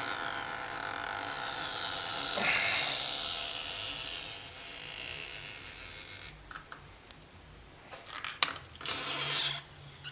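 Stretchy battery adhesive strip under an iPhone 6S Plus battery being pulled and peeling loose, giving a long scratchy crackle with a slowly falling squeal that fades after about six seconds. A few short scrapes follow near the end.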